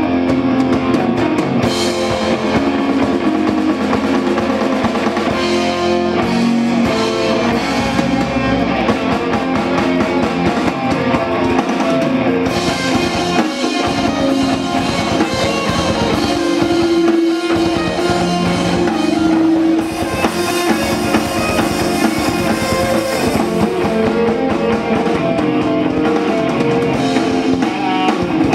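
Live rock band playing: electric guitar, bass guitar and drum kit together.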